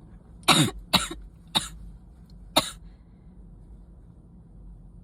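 Four short, sharp, explosive bursts of breath from a person with a cold, coming in quick succession in the first three seconds, the first the loudest.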